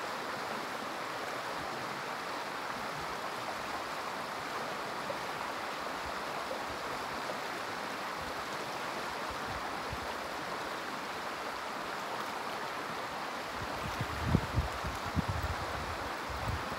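River water rushing steadily over shallow rocky riffles, a constant even wash. A few low bumps come near the end.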